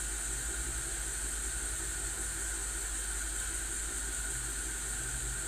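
A steady, even hiss over a low hum.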